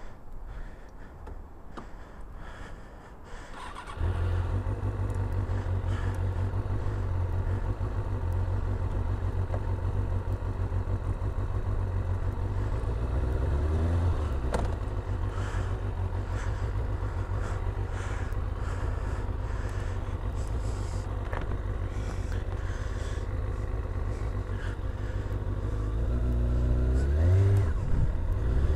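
Kawasaki ZX-6R motorcycle engine starting about four seconds in, then idling steadily, with a brief rev about halfway through. It revs up near the end as the bike pulls away.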